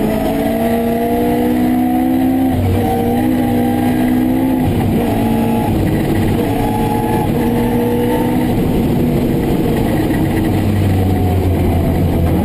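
Rally car engine heard from inside the cockpit, running hard at high revs, its pitch climbing slowly and dropping back at upshifts a couple of times as the car runs up through the gears.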